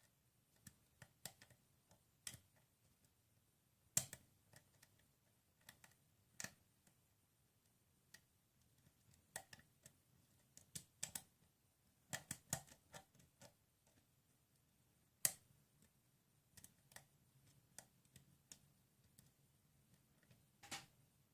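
Faint, irregular clicks and scrapes of a lock pick and tension wrench working the pin stack of a Schlage pin-tumbler lock during single-pin picking. A few sharper clicks stand out, about four seconds in and again about fifteen seconds in.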